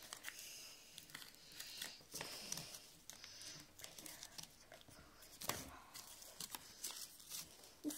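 Origami paper rustling and crinkling as it is handled and folded by hand: scattered soft crackles, with a louder crinkle about five and a half seconds in.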